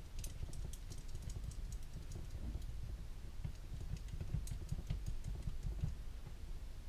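Light, irregular clicks and taps of small metal parts as an airsoft gearbox shell is handled and fitted back together by hand, ahead of screwing it shut.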